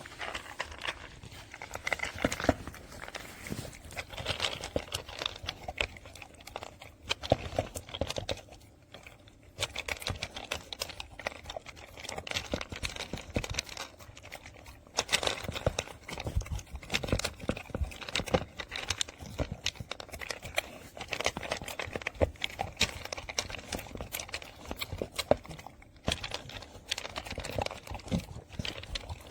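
Dog eating dry kibble from a plastic slow-feeder bowl: a continuous, irregular run of small clicks, rattles and crunches as the food is nosed out of the maze ridges.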